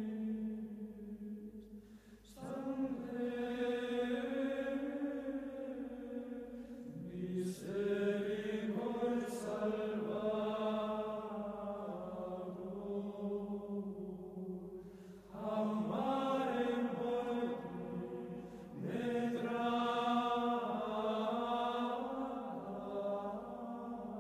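Sacred chant sung by voices, holding long, slowly changing notes in phrases, with short breaks between phrases about 2, 7, 15 and 19 seconds in.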